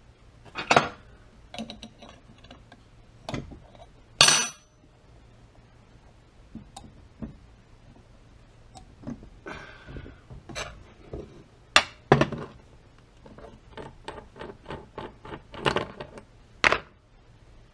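Metal hand tools clinking and clanking in irregular separate knocks as wrenches and a flywheel puller are handled and fitted on a small two-stroke engine's flywheel, with one sharp metallic clank about four seconds in.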